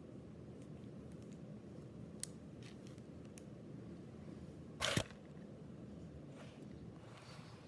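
Faint handling noise of trading cards and packs being handled: a few small clicks and light rustles, with one short louder knock or rustle a little before five seconds in.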